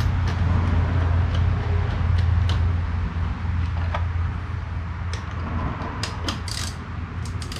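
Light metallic clicks and taps of a spanner working a turbo oil feed fitting tight, scattered at first and coming closer together near the end, over a steady low hum.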